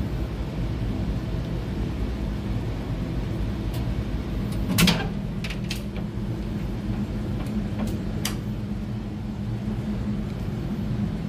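Steady low hum of a cruise ship's engine-room machinery, with a handful of short clicks and knocks between about four and eight seconds in, the loudest just before five seconds.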